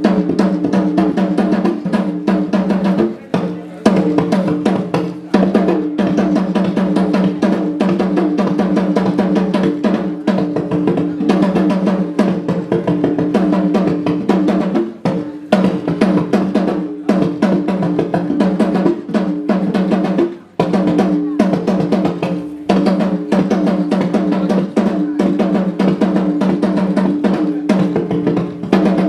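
Drumming and percussion playing a fast, dense rhythm without a break, with voices underneath. The playing drops out briefly twice.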